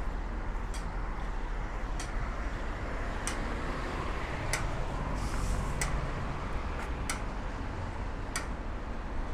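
Pedestrian crossing signal's push-button locator tone ticking slowly, about one tick every 1.25 seconds, the slow tick that marks the wait before the walk signal. Steady traffic rumble runs beneath it, with a car passing about halfway through.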